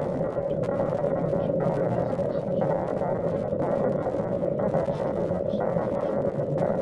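Heavily distorted, glitch-processed audio: dense noise over a steady hum-like tone, with the upper hiss shifting in steps about once a second.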